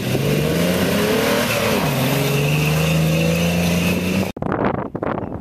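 Off-road race vehicle's engine running hard, its pitch climbing and then dropping sharply about two seconds in before holding steady. About four seconds in the engine cuts off abruptly, giving way to gusty wind noise on the microphone with scattered clicks.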